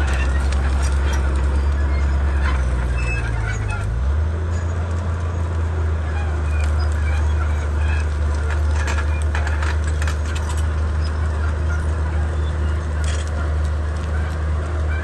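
Komatsu D31P bulldozer's diesel engine running steadily under work, its note stepping up slightly about four seconds in, with scattered sharp clanks and cracks.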